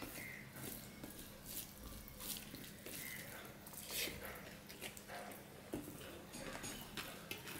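Fingers mixing and squeezing polao rice with koi fish curry on a steel plate, making irregular wet squelching and sharp little clicks.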